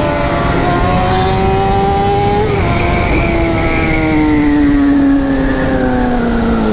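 Sport motorcycle engine heard from the rider's seat at speed, over wind rush. The revs climb under throttle, drop briefly with a gear change about two and a half seconds in, then sink slowly as the throttle eases.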